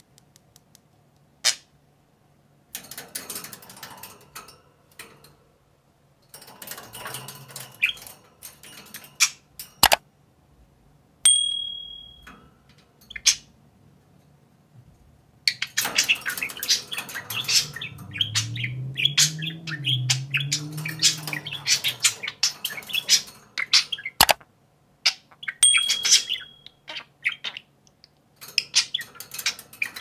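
Budgerigars chattering and warbling in bursts of rapid chirps, with two short, clear whistled notes and a couple of sharp clicks.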